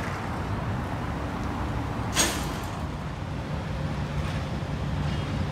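Steady low rumble of urban road traffic and idling engines, with one short sharp hiss about two seconds in.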